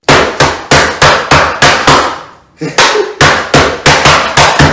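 Hands slapping a tabletop in a fast, even rhythm: sharp slaps about three a second, with a brief pause about two seconds in.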